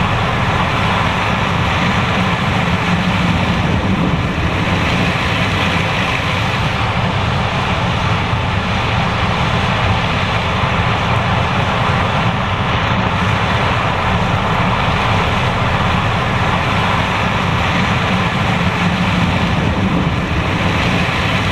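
John Deere S780 combine harvester running steadily while harvesting corn, a loud, even machine noise with no change in pace.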